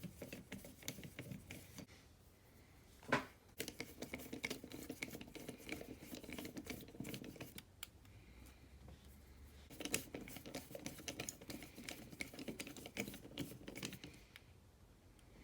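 Rapid runs of small metal clicks as a T8 Torx bit in a driver handle is turned against a screw in the head of a Pittsburgh 1/2-inch flex-head ratchet, with one louder knock about three seconds in.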